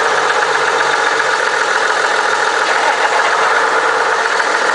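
A vehicle engine idling close by: a loud, steady running noise with a faint even throb underneath.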